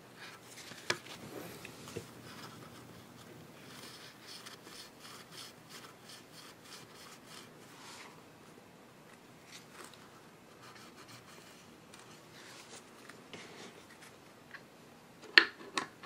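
Faint handling noises: light rubbing and scraping, with a few small clicks about a second in and a louder pair of clicks near the end.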